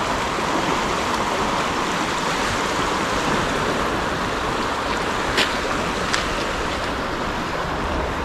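Steady rushing noise of wind and choppy water, with two short sharp clicks about five and six seconds in.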